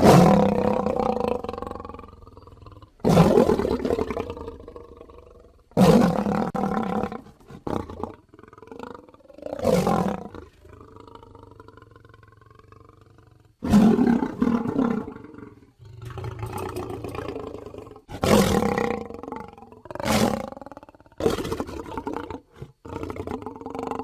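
Animated-film sound effect of a Tyrannosaurus roaring: a string of about eight loud roars, each starting abruptly and fading away over a second or two.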